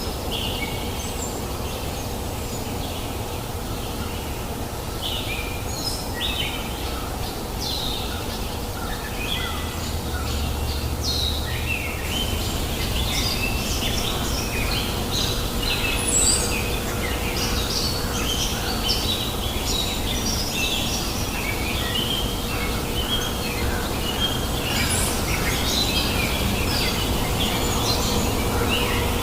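Many birds chirping and twittering in quick, overlapping calls, over the steady babble of a river.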